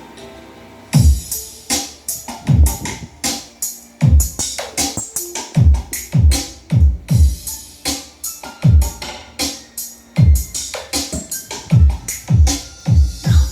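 Electronic dance beat played loud through a JOSON Saturn speaker system for a sound check. Deep drum-machine kicks drop in pitch, with sharp hi-hat and clap hits between them, and the beat kicks in about a second in.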